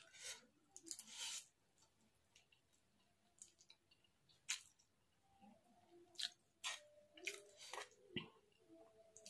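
Quiet close-miked eating of chow mein noodles: chewing and slurping, with a fork clicking and scraping on a metal plate now and then.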